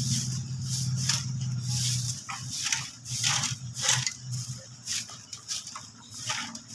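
Stick broom and hand tools scraping over dry, gravelly dirt in irregular strokes, about one a second, with a low steady hum during the first two seconds.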